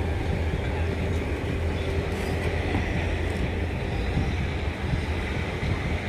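Earthmoving machinery (bulldozers and an excavator) working the reclaimed sand, heard as a steady low engine rumble.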